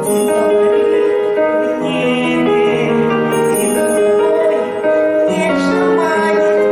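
Music from a slow ballad: long held notes over sustained accompaniment chords.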